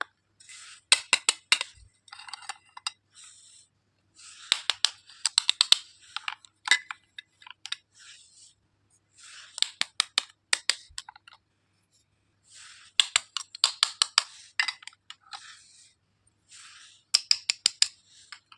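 Plastic toy doctor-set pieces and packaging being handled: five bursts of sharp clicks and clinks with rustling, a few seconds apart.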